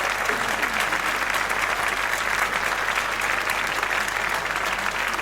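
Concert audience applauding steadily, a dense even clatter of many hands clapping.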